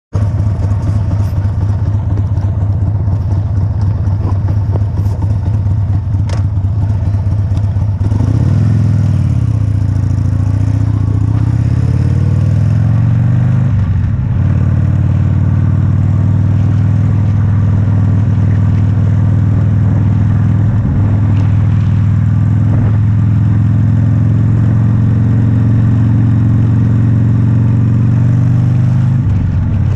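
Motorcycle engine idling at first. About eight seconds in it revs up as the bike pulls away. There is a break in the engine note near the middle, like a gear change, then it runs at a steady speed with another change near the end.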